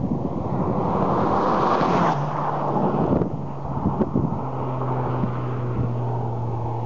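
1999 Saab 9-3 Turbo's turbocharged four-cylinder, on a 2.75-inch catback with a generic muffler, driving past at speed. The exhaust note builds as the car nears, drops in pitch as it passes about two seconds in, then hangs on as a steady low drone while it pulls away. Wind is on the microphone.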